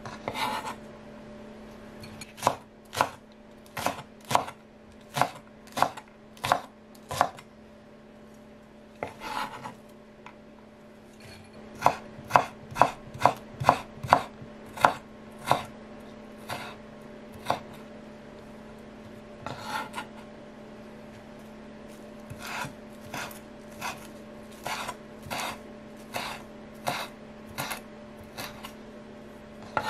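Kitchen knife chopping myoga, ginger and a leafy herb on a wooden cutting board, in runs of sharp single knocks about one to two a second, quickening for a few seconds near the middle. A couple of longer scraping sounds break up the chopping.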